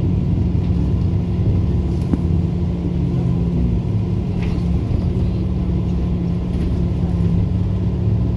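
Inside a moving SVARZ 6235 trolleybus: a steady low rumble of the running gear and road, with a constant low hum under it.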